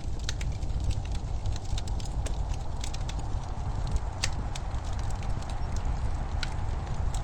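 Wood fire crackling in a fireplace: frequent sharp pops and snaps over a steady low rumble, with louder pops about four and six and a half seconds in.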